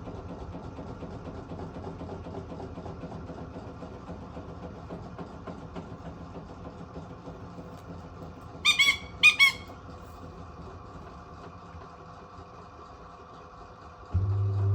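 A washing machine runs with a steady mechanical hum while a white-bellied caique gives two loud, short squawks about nine seconds in, half a second apart. Near the end a louder low hum starts suddenly.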